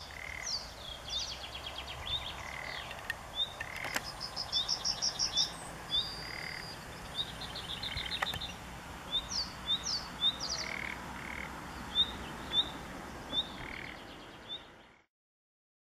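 Wetland chorus of frogs croaking and many birds giving short chirps and rapid trills, the calls coming one after another over a faint steady background. It cuts off abruptly near the end.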